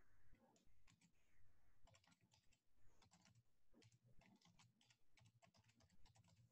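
Faint keystrokes on a computer keyboard: quick irregular runs of clicks as words are typed.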